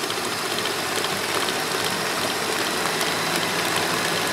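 Electric stand mixer running steadily, its flat beater mixing an egg into creamed butter and sugar in a steel bowl.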